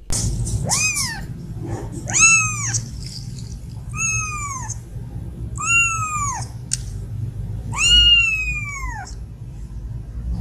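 Young kitten meowing: five high, drawn-out calls, each rising and then falling in pitch, about every two seconds, the last the longest and loudest. A steady low rumble runs underneath.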